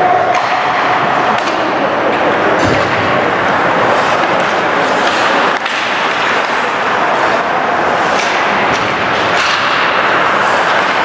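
Ice hockey game sounds in a rink: a steady wash of noise with several sharp clacks and thuds from sticks, puck and boards.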